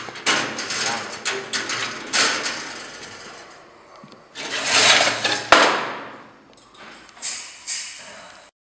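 Clanking and knocking of welded steel wire mesh being handled, with a sharp metallic bang about five and a half seconds in. The sound stops abruptly near the end.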